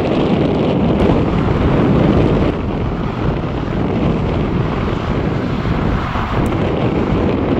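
Ilyushin IL-76TD-90VD's four PS-90A turbofans at takeoff power during the takeoff roll: a steady low rumble, mixed with wind buffeting the microphone.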